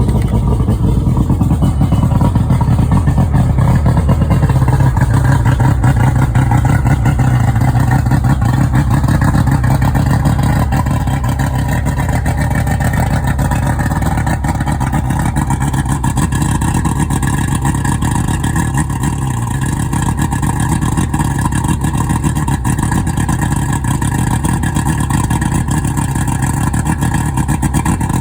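Johnson 150 hp V6 two-stroke outboard running steadily just after starting, a little louder for the first ten seconds or so before settling to a steady idle.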